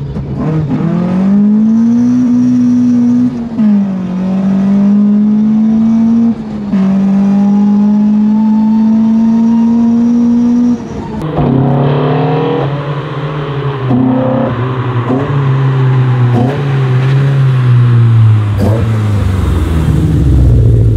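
Toyota AE86 Trueno's four-cylinder engine accelerating hard from inside the cabin, the note climbing with two gear changes. Then the car is heard from outside as it approaches, the engine note falling with short blips and growing louder toward the end.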